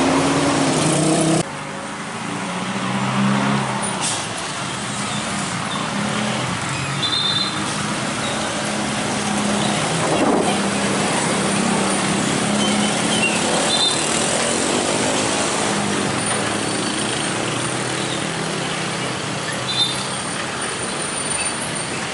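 Road traffic crossing a railway level crossing: a heavy dump truck's diesel engine running at low speed as it crawls over the tracks, with cars and motorcycles passing. The sound changes abruptly and drops a little about a second and a half in, and a few short high chirps sound now and then.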